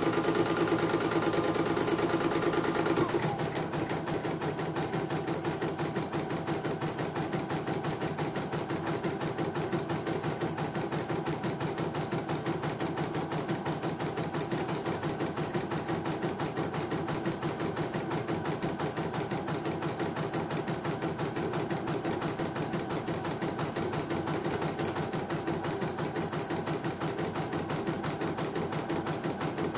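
CNY computerized embroidery machine stitching a test design after repair, its needle going at a fast, steady rhythm while the hoop carriage shifts the fabric. It is louder for the first three seconds, with a higher whine that drops away.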